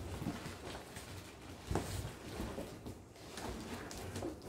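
Large cardboard box being handled and tilted, its flaps and packing scraping and rustling as hands work inside it, with a light knock a little under two seconds in.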